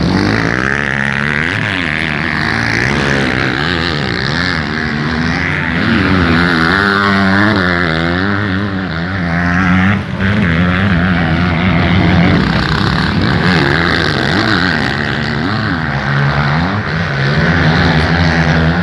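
Several motocross bikes racing, their engines revving, rising and falling in pitch as the riders work the throttle through the track.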